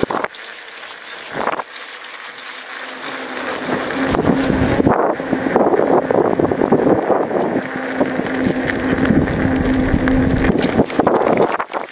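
Wind buffeting the microphone of a moving mountain bike, with the bike's tyres rolling over grooved concrete and scattered knocks from bumps. A steady low hum sets in about two seconds in and runs nearly to the end, with a short break around the middle.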